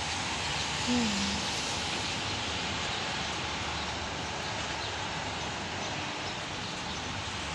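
Steady, even hiss of outdoor background noise, with a brief low hum of a voice about a second in.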